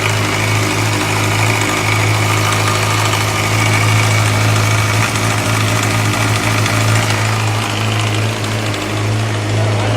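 2007 Yamaha R6's inline-four engine idling steadily. The owner says it has a ticking clatter, more a tick than a knock, at the upper right of the cylinder head, which appeared after the bike fell on its right side.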